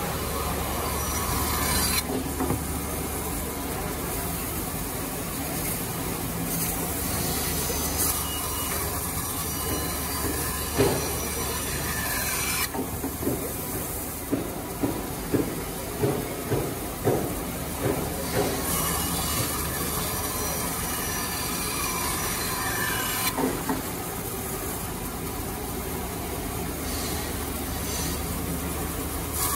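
CNC jigsaw's vertical reciprocating blade cutting through a thick block of wood, a steady mechanical sawing noise. In the middle comes a run of sharp knocks, about two a second.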